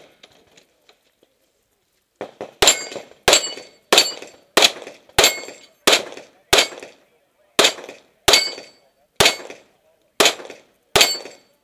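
A USPSA Open-division pistol firing a rapid string of about a dozen shots, roughly one every two-thirds of a second, beginning about two seconds in with a couple of short pauses. Several shots are followed by a brief metallic ring of steel plates being hit.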